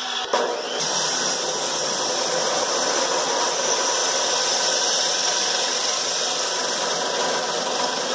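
DeWalt abrasive chop saw with its wheel grinding through metal stock in one long steady cut; the cutting noise sets in about a third of a second in and holds evenly.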